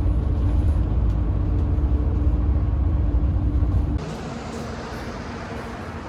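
A motor vehicle running, heard as a loud low rumble with a steady hum. About four seconds in it cuts off suddenly to quieter, even background noise.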